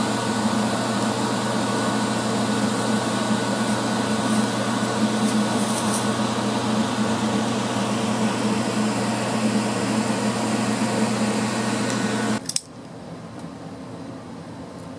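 MIG welder arc burning steadily while welding onto a steel wheel bearing race: a continuous hiss over a low hum. It cuts off abruptly with a click near the end.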